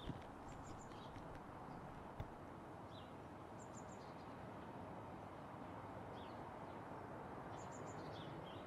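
Quiet outdoor ambience: a steady background hush with small birds chirping now and then in short, high clusters of two or three notes. There are a couple of faint taps, the clearest about two seconds in.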